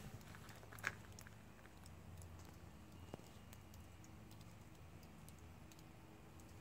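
Near silence: faint scattered ticks and clicks over a low steady hum, with one slightly louder click about a second in.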